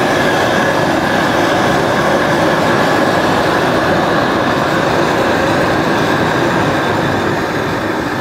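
High-pressure propane jet burner under a Bayou Classic seafood cooker running wide open, a loud steady rush, with the pot at a full boil. It gets a little quieter near the end as the regulator valve is turned down.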